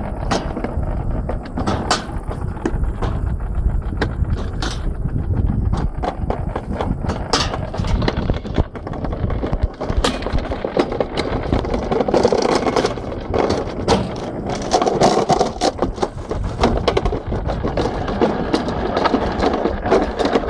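Summer toboggan sled being hauled uphill along its metal track: a steady rolling rumble with frequent irregular clicks and knocks.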